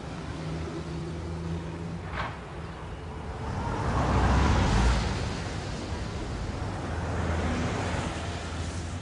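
Street traffic: a car passes close, rising to a peak about four to five seconds in and fading, with another vehicle passing more softly near the end, over a steady low rumble of traffic.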